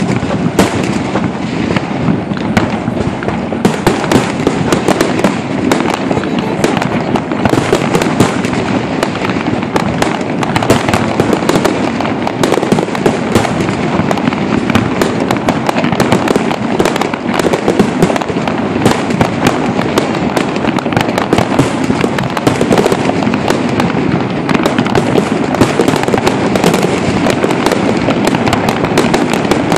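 Fireworks going off in a rapid, unbroken run of bangs and crackles.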